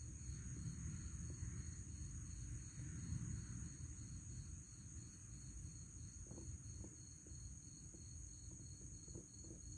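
Faint low rumble of a handheld phone being moved while filming, under a steady high-pitched drone, with a few soft ticks in the second half.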